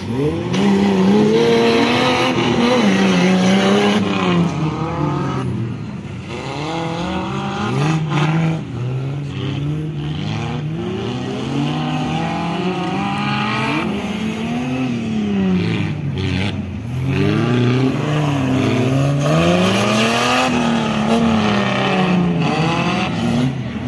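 Offroad buggy engine revving up and down again and again, its pitch rising and falling every second or two as the throttle is worked.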